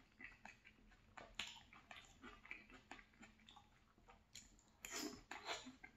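Quiet close-up chewing: faint wet mouth clicks and smacks of a person eating a chicken and vegetable stir fry, with a few sharper smacks about a second and a half in and toward the end.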